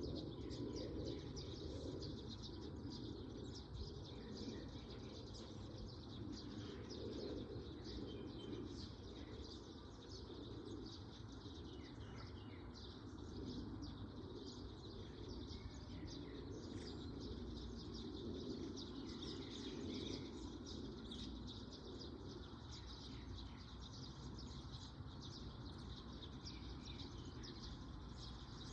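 Small birds chirping and twittering in a dense, continuous chorus of short high notes, over a low background rumble.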